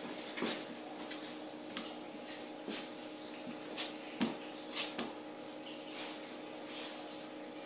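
A cat and a dog play-fighting on a tiled floor: scattered soft knocks and scuffs, about half a dozen, the loudest a little past four seconds in, over a steady hum in the room.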